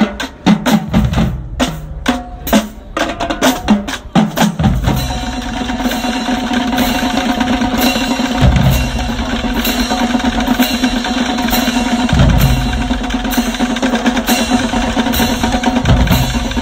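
High school marching drumline of snare and bass drums playing a cadence: separate sharp strokes for the first four seconds or so, then a sustained snare roll, with deep bass drum hits about every four seconds.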